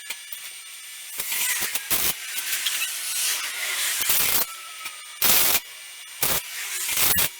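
Welder laying short tack-weld bursts on sheet steel: a crackling hiss that starts and stops several times. The longest burst comes about a second in, and there are shorter ones near the middle and toward the end.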